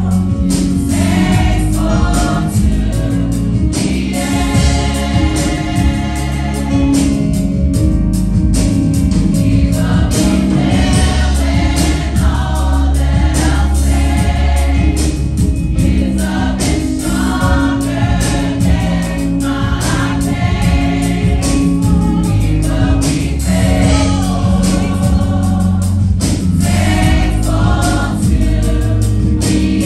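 Women's and girls' choir singing a gospel song in unison phrases, accompanied by a live church band with drums and a steady bass line.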